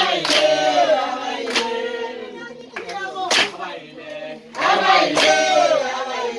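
A group of voices singing together, with a sharp clap about every one and a half seconds.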